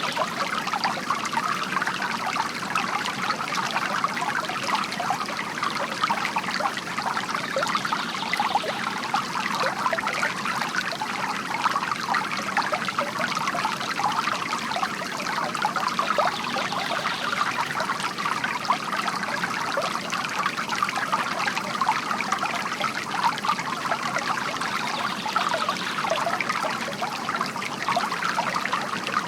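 Water from a bamboo fountain trickling steadily, a continuous splashing flow with no pauses.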